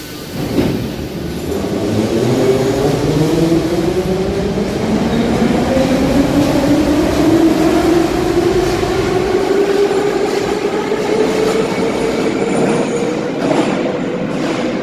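Kyiv Metro train of the Soviet 81-717 type pulling out of a station. Its traction motors give a whine that rises steadily in pitch as the train accelerates, over the rumble of wheels on rail. The sound builds over the first two seconds and then holds loud.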